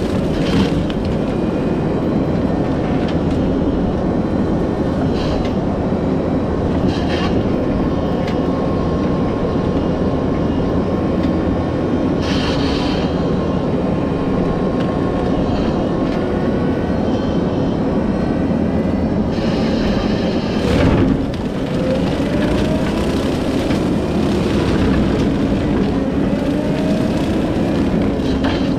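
Kubota SVL75-2 compact track loader running steadily with its Skid Pro hydraulic brush-cutter head: a dense, continuous machine drone, with a few brief louder bursts as brush is struck.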